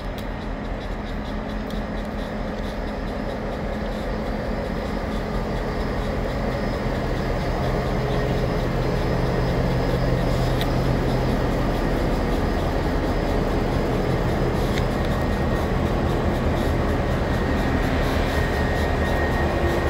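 Parked EMD diesel locomotives (F-units and an SD50-2) idling: a steady low diesel hum with held low tones, growing gradually louder.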